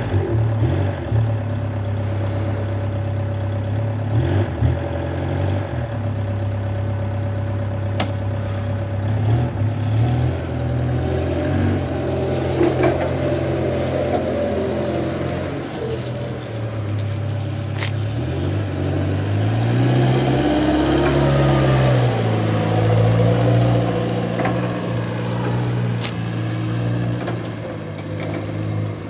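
Linde forklift's engine running as the forklift is driven about, the engine note steady at first, then rising and falling with the throttle and loudest about twenty seconds in.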